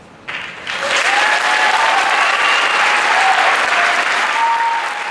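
Concert audience applauding, breaking out about a third of a second in and swelling within a second, with a few voices cheering over it.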